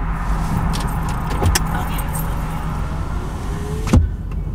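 Steady hum of a car idling, heard from inside the cabin, with a few light clicks and jingles and one sharp knock about four seconds in.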